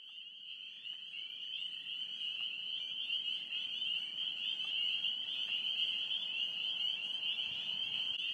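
Chorus of frogs: a dense, steady, high-pitched calling that swells up over the first couple of seconds.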